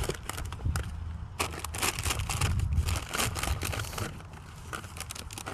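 Trash bags and discarded packaging rustling and crinkling as items in a dumpster are handled, in irregular crackles that are busiest in the middle and thin out near the end, over a low rumble of wind on the microphone.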